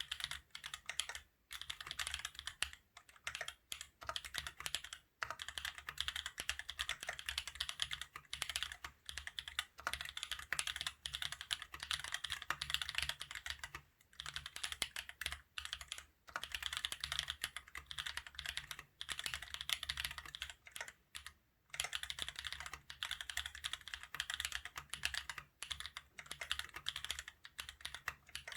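Mechanical keyboard with Holy Panda tactile switches on a carbon fibre plate in an aluminium case, typed on quickly and continuously, with a few brief pauses.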